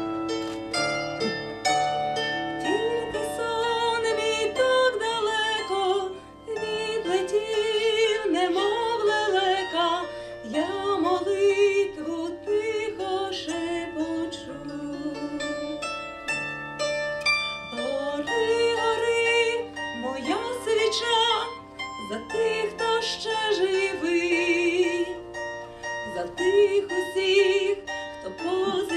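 A woman singing a slow song in Ukrainian to her own bandura accompaniment: the bandura's plucked strings ring out note after note under long, wavering sung notes.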